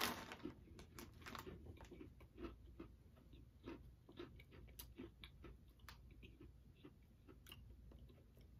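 A person chewing a crisp, plain round cookie, a María biscuit, with faint uneven crunches at about two a second. A brief, louder noise comes right at the start.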